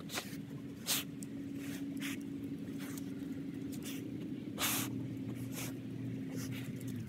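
A dog sniffing hard with its nose pushed into a gopher hole: a series of short, sharp snuffs, about one every second, over a steady low hum.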